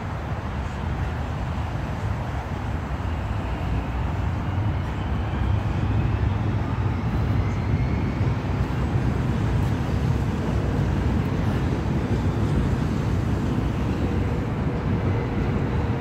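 Steady low outdoor background rumble, swelling a little about five seconds in.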